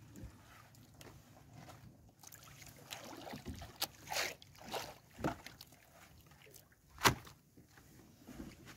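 Fishing net being hauled by hand into a small wooden boat: wet net and water splashing and dripping as it comes over the side, with irregular rustles and knocks, and one sharp, loud hit about seven seconds in.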